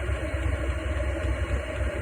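8 kW diesel air heater running steadily as it warms up: a low combustion rumble with a steady fan whine over it.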